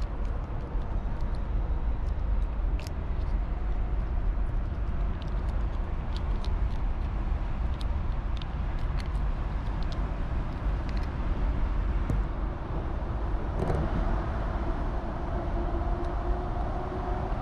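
Steady low rumble of city traffic, with faint wet clicks of a cat licking a lickable treat from a squeeze tube held right by the microphone.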